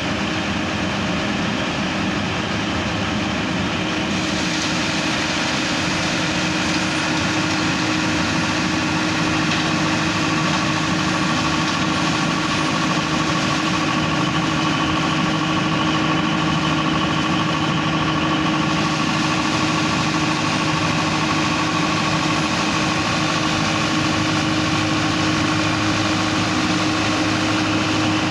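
Trailer-mounted leaf vacuum loader running steadily: a constant engine and fan drone with a steady whine over it.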